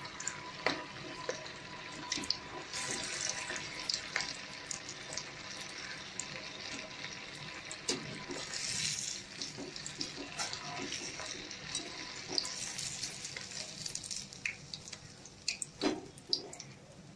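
Cheese corn balls deep-frying in hot oil in a steel kadai: a steady sizzling hiss, with clicks and scrapes of a metal slotted spoon against the pan. The sizzling eases near the end as the balls finish frying.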